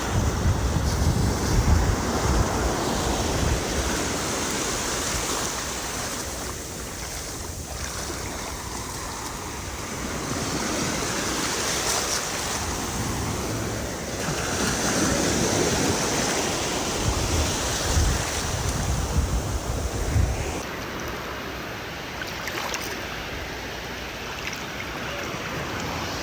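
Ocean surf breaking on a beach, the wash of the waves swelling and easing every few seconds, with gusts of wind rumbling on the microphone now and then.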